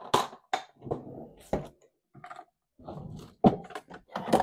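Small hard objects being handled and set down on a craft table: a run of irregular knocks and clicks, the loudest near the end.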